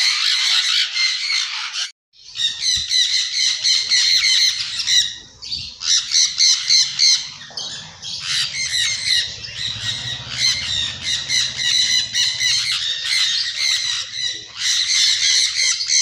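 Sun conures squawking shrilly and almost without pause, many rapid harsh calls overlapping, with a brief break about two seconds in.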